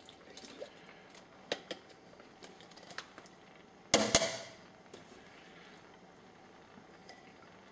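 Metal can of Rotel tomatoes being tipped and shaken out into a stainless steel pot: a few light clicks and taps, then two sharp metallic knocks close together about four seconds in as the can hits the pot rim and the tomatoes drop in.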